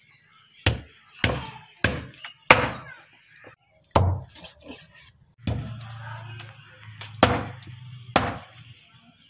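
Large kitchen knife chopping a skinned rabbit carcass into pieces on a wooden table: seven sharp whacks at uneven spacing, four in quick succession, then one on its own, then two more. A low steady hum runs underneath for about three seconds in the second half.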